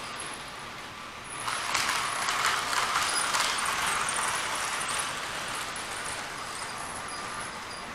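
Model train running on the layout's track, a steady rolling whir with fine rapid clicking that grows louder about a second and a half in as it passes close, then eases back after about five seconds.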